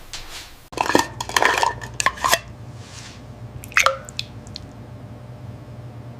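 Clinking and clattering of dishes and cutlery in a burst of sharp knocks, then a few lighter clinks a little later, over a steady low hum.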